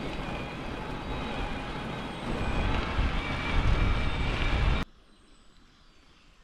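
Rushing noise of riding along on an e-bike, with wind on the microphone. It swells with a deep rumble about two seconds in, then cuts off abruptly just under five seconds in, leaving it much quieter.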